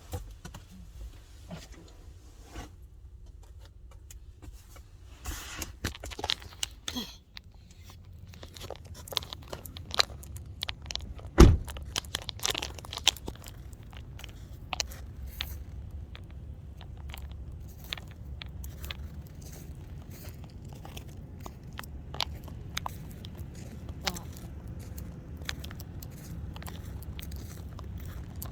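Scattered clicks and rustling handling noise with one loud thump about eleven seconds in, over a low steady rumble that sets in after about eight seconds.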